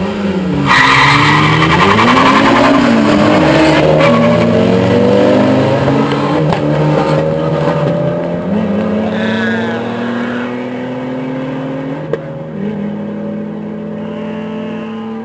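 Two cars launching hard side by side from a standing start in a street drag race: tyres spinning and screeching for the first few seconds while the engines rev up and shift several times, then both engines run on at high speed, slowly falling in pitch and fading as they pull away.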